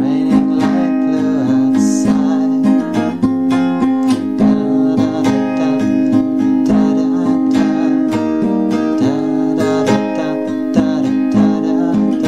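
Music: a song with strummed guitar chords in a steady rhythm.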